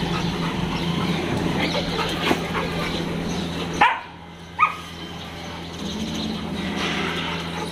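Dogs at play in a group, one giving two short, sharp barks with a falling pitch a little past halfway, over a steady low background hum.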